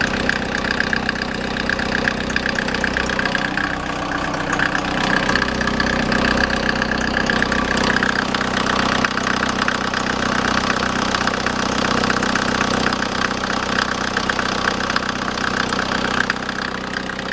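A Mercedes Vito's accessory drive (alternator) belt squealing in a high, rapid chirping over the idling engine while it is sprayed with water; wetting the belt makes the squeal go away.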